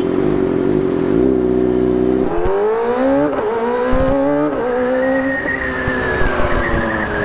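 Sport motorcycle engine running steady, then accelerating hard. Its pitch climbs with two quick upshifts, holds high, and eases off near the end.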